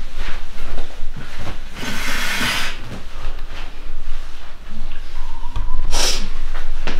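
A woman breathing hard during prayer, with a long, forceful hissing exhale about two seconds in and another sharp one near six seconds, amid rustling and small knocks.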